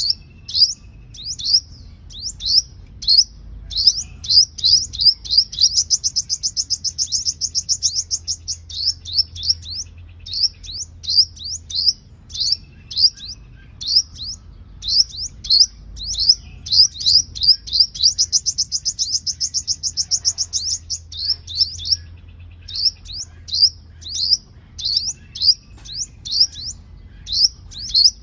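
Sunbird singing: a long string of sharp, high chirps, broken twice by a fast trill that lasts a few seconds.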